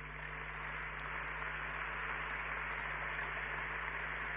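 A large audience applauding, building slightly in the first second and then holding steady.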